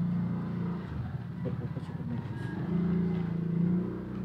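A 72cc gasoline chainsaw's two-stroke engine running steadily at idle, getting louder about three seconds in.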